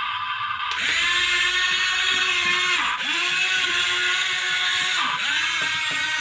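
Electric motor whine of a large radio-controlled excavator, which rises about a second in, then twice dips in pitch briefly and recovers.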